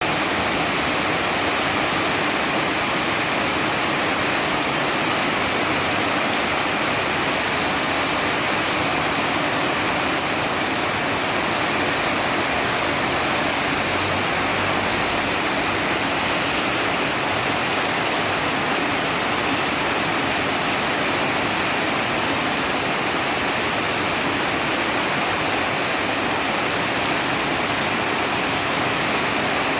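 Steady, heavy rain falling, a dense even hiss of water without breaks.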